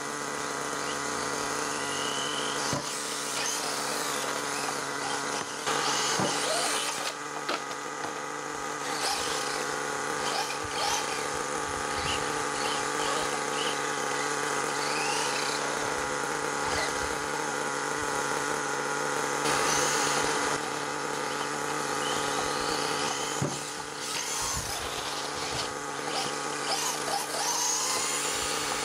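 HPI Savage XL nitro engine idling steadily on its break-in tank. Over it, the whirr of a small electric RC car's motor rises and falls several times as the car accelerates and slows on the road.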